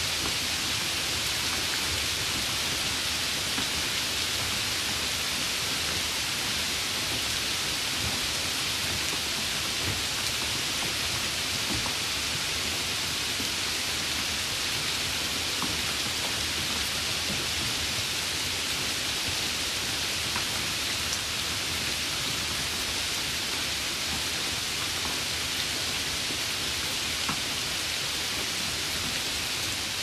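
Steady rain falling: an even hiss, with a few single drops ticking out of it now and then.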